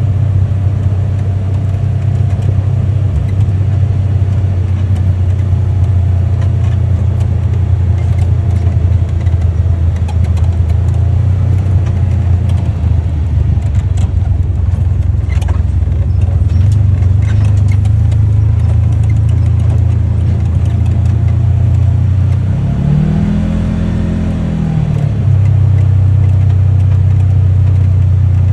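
UTV engine running steadily while under way, with scattered clicks and rattles through the middle. About 23 seconds in, the engine note rises and falls back over a couple of seconds.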